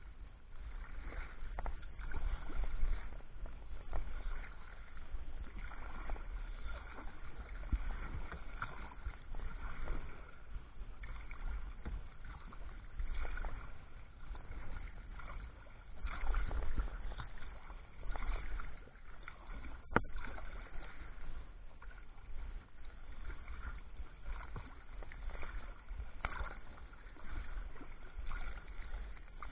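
Kayak paddling: a wooden Greenland paddle dipping into the creek water, making irregular splashes and drips, over a steady low rumble. One sharp click comes about twenty seconds in.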